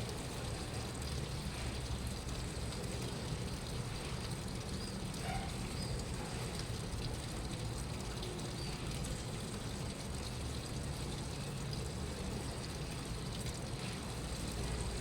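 Washing machine running: a steady, even noise with a low hum, with no change in pace.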